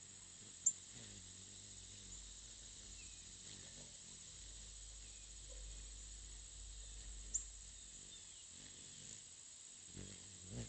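Hummingbirds giving short, high-pitched chip calls: a sharp chip under a second in, another about 7 seconds in, and faint twittering in between. A soft low bump comes near the end.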